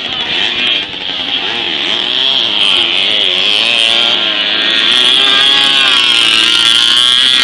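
Small moped engines revving, their pitch rising and falling again and again, growing a little louder about halfway through.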